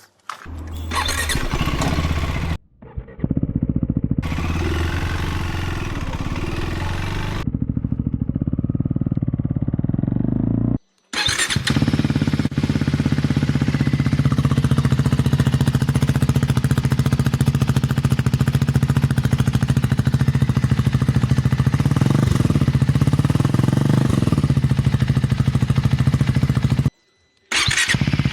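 KTM Duke 390's single-cylinder engine running through a newly fitted Cobra SPX-O aftermarket exhaust, in several short clips joined by hard cuts. In the longest clip it idles steadily, with a brief rise in revs near the end.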